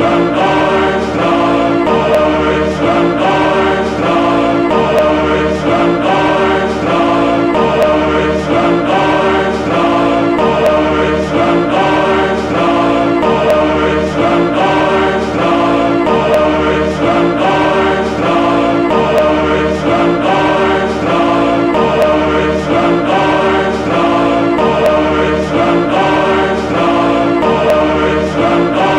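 A choir singing a slow piece in sustained chords that change about once a second, at a steady volume.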